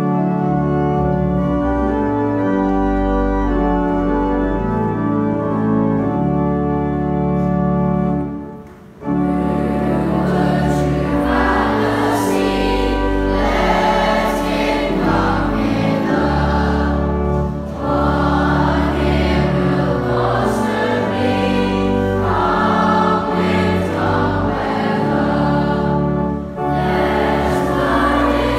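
An organ plays a hymn introduction in steady held chords. After about eight seconds a brief pause, then a boys' choir comes in singing the hymn with the organ accompanying.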